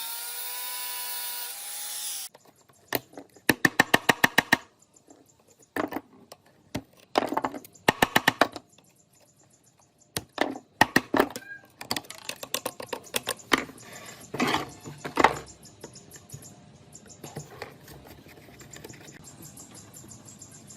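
A power tool's electric motor running, winding down in pitch and stopping about two seconds in, followed by irregular clicks, rapid rattling click runs and knocks from metal parts being worked by hand.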